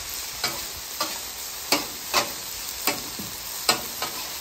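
Diced potatoes sizzling steadily on a hot steel flat-top griddle, giving off steam as their moisture cooks out. About six sharp clicks and scrapes from a metal spatula working near the potatoes cut through the sizzle.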